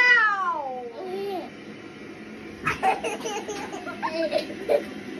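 A girl's loud, high-pitched exclamation that slides down in pitch over about a second, followed by a shorter rising-and-falling vocal note. From about halfway through there is a young child's babbling and laughter.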